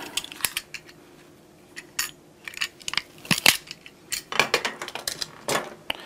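Irregular light clicks and taps of small hard objects being handled on a countertop, with a small cluster of them a little past the middle.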